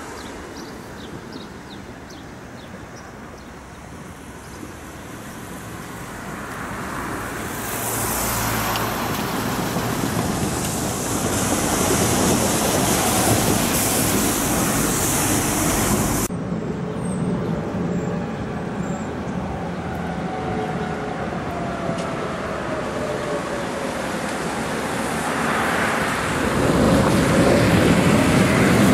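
Street traffic on wet roads: tyre hiss swells and fades as vehicles pass. Near the end a Tatra KT4D articulated tram draws near, its running noise growing louder with a faint whine.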